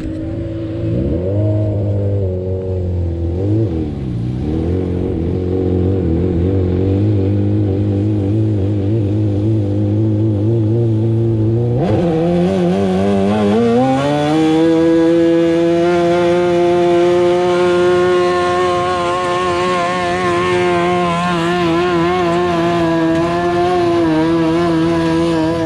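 Modified pulling garden tractor's engine revving in a few quick blips, then about halfway through climbing to high revs and holding there steadily under load during a pull.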